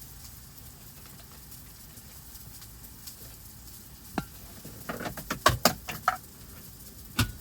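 Low background hum, then a run of sharp clicks and knocks from something being handled, bunched together about two thirds of the way in, with one more loud click near the end.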